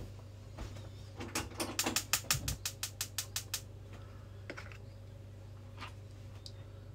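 A quick run of about a dozen sharp mechanical clicks, about five a second, like a ratchet, with a low thud in the middle and a few single clicks afterwards, over a steady low hum.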